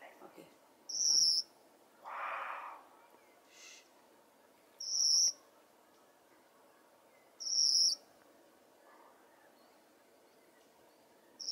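Baikal bush warbler singing: short, high-pitched song phrases of about half a second each, repeated about every three to four seconds.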